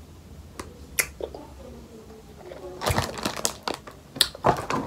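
Close mouth sounds of someone chewing soft sour gummy hearts: scattered wet clicks and smacks, with two busier clusters about three and four and a half seconds in, and a faint murmur in between.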